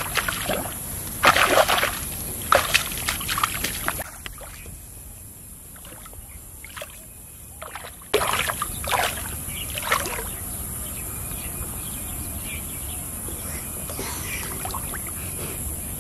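Shallow muddy water splashing and sloshing as a child wades in and grabs at a fish. There are bursts of splashing in the first few seconds and again about eight seconds in, where the fish thrashes at the surface, over a steady high hiss.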